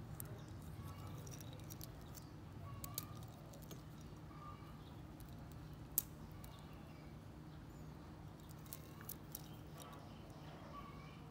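Faint clicks and light ticks of a metal watch being handled, with one sharp click about six seconds in, over a steady low hum and faint chirps in the background.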